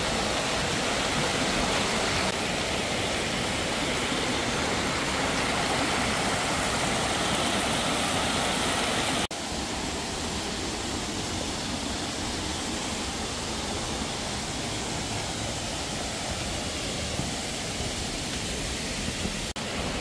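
Twin waterfall pouring into a rock pool: a steady rush of falling and splashing water. About nine seconds in it switches abruptly to a slightly quieter, duller rush.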